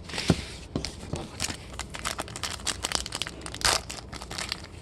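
Plastic-foil wrapper of a trading card pack crinkling and being torn open by hand, a dense run of irregular crackles with a sharper rip about three and a half seconds in.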